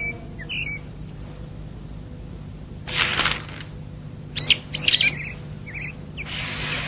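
Small cartoon bird chirping in short, high gliding tweets, with a brief rush of noise about three seconds in and again near the end.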